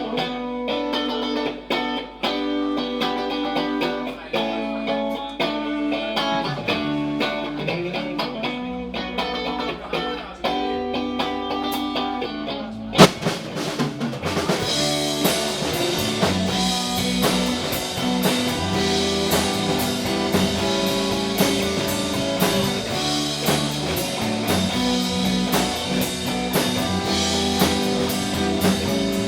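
Live rock band playing an instrumental passage with no singing. Guitar notes carry the first half. About halfway through a loud hit brings the full band in, with drums and bass.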